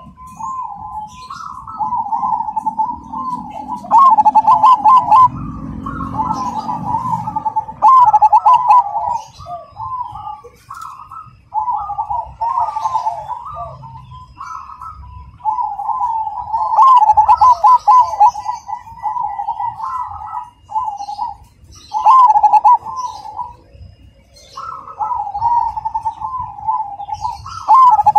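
Zebra dove (perkutut) of the dark cemani variety singing its rhythmic cooing song, phrase after phrase with short pauses between, with faint chirps of small birds behind it.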